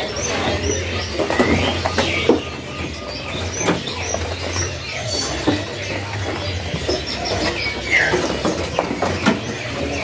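Many caged songbirds giving short, scattered chirps, mixed with brief clicks and rattles from the wire cages, over a steady low hum.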